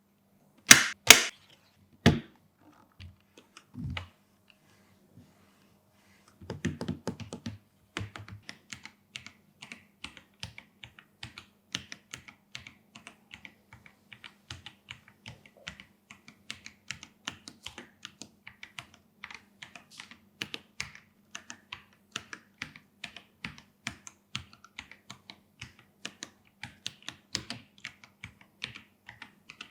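Typing on an Akko PC75B mechanical keyboard with Akko CS Jelly Purple tactile switches and PBT keycaps, with steady keystrokes several times a second from about eight seconds in. It opens with a few loud, sharp knocks, then a quick flurry of keystrokes.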